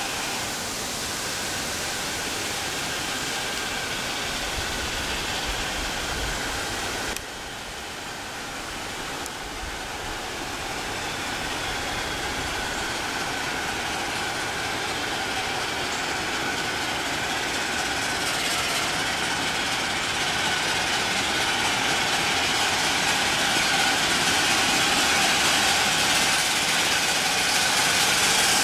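A 12-inch gauge live steam locomotive running toward the listener with a steady rushing sound. The sound drops abruptly about seven seconds in, then grows steadily louder as the train draws near.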